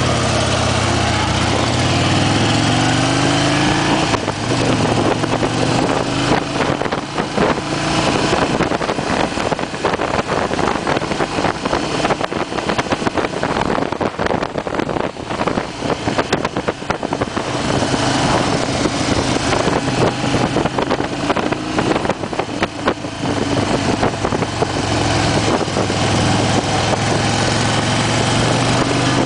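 2008 Harley-Davidson Fat Bob's Twin Cam 96 V-twin running under way on the ride, its pitch climbing as it accelerates in the first few seconds, then holding a steady cruise. Wind buffets the microphone heavily through the middle stretch, partly covering the engine.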